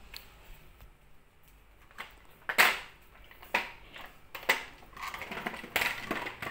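A child's kick scooter being handled on a tiled floor: several short scrapes and clatters, the loudest about two and a half seconds in, with a rougher run of them near the end.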